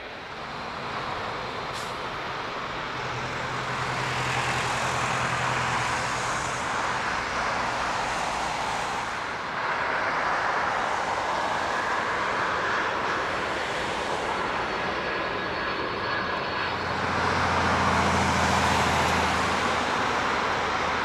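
Airbus A380 airliner's jet engines, a broad rushing noise from the passing aircraft that builds over the first few seconds and swells to its loudest again near the end.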